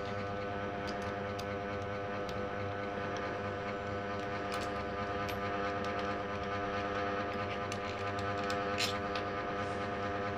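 A steady hum made of several held tones, with scattered light metallic clicks and taps from the small parts of a PCP air rifle's trigger unit being handled and worked with a pin.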